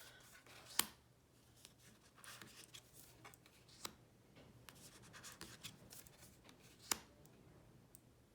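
Tarot cards being handled in a flip-through: faint rustling and sliding of cards, with two sharp clicks, one about a second in and one near the end.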